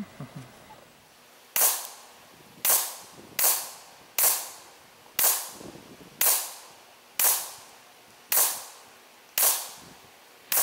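Suppressed semi-automatic AR-15 rifle firing .223 rounds in steady succession: ten sharp shots about a second apart, the last at the very end, each with a short echo.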